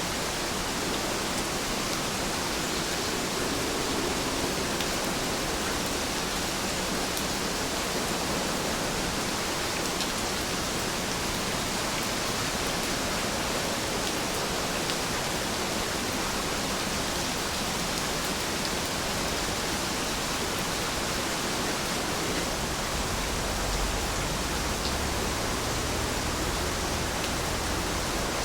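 Steady rain, an even hiss with a few faint drop ticks and a low rumble that rises near the end.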